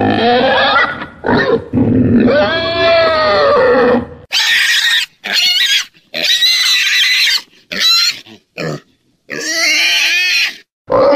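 Domestic pig squealing in a series of calls. A long squeal rises and falls about two seconds in, then shorter, shriller squeals follow with brief silences between them.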